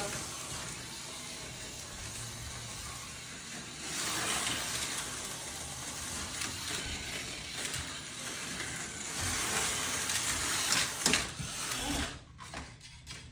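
TYCO HO-scale slot cars lapping the plastic track: a steady whirring rattle of small electric motors and pickups in the slot, with a few knocks shortly before it drops away near the end.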